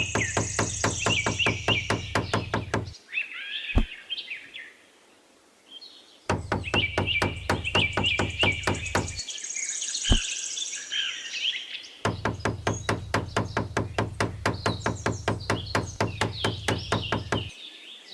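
Birds chirping over a fast, even tapping of about eight strokes a second that runs in three stretches with short pauses between, and two single sharp knocks in the pauses.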